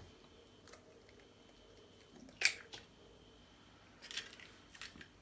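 An egg being cracked open by hand: one sharp tap about halfway through, then a few faint crackles of shell near the end as it is pulled apart.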